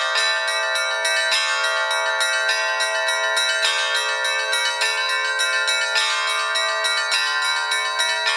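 Bells ringing, struck in a quick, unbroken succession so that their tones overlap and ring on.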